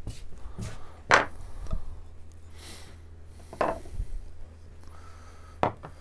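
Woodcarving gouges and other hand tools being handled on a wooden workbench: three separate knocks and clacks, the loudest about a second in, over a steady low hum.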